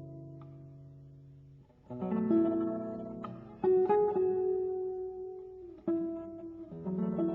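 Background music: slow guitar chords, each struck and left to ring and fade, with a new chord every second or two.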